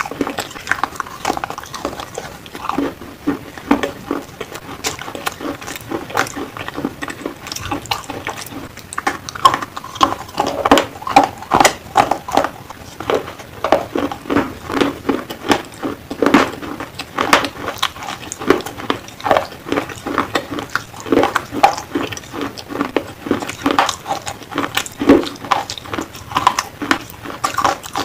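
Black slate pencils being bitten and chewed close to the microphone: a rapid, irregular run of sharp crunches.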